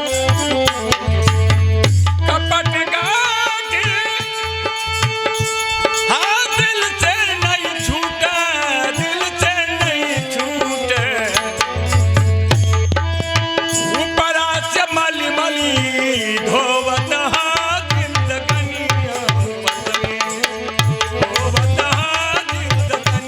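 Ghazal music: tabla keeps a rhythm under a melody that bends and glides, with a few long held notes.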